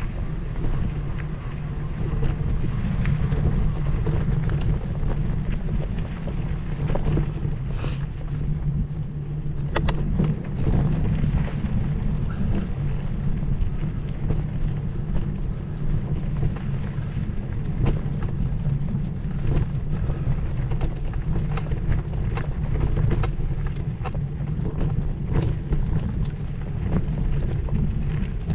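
Steady wind rumble buffeting the microphone, with scattered clicks and rattles over it.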